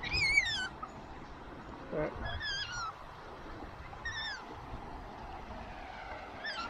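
A pet otter calling: four short, high-pitched chirps that waver and fall in pitch, spaced about two seconds apart.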